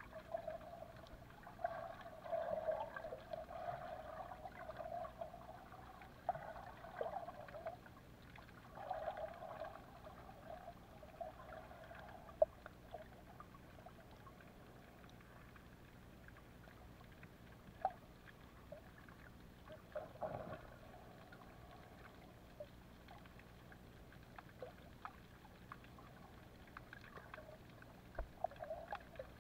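Underwater sound picked up through a submerged camera: water swishing and gurgling against the housing, busier in the first half, then quieter with scattered sharp clicks and pops.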